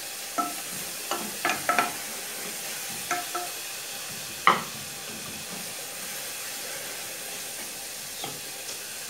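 Grated onion sizzling in melted margarine in a saucepan while a wooden spoon stirs it, knocking against the pan several times in the first few seconds, the loudest knock about four and a half seconds in, then twice lightly near the end.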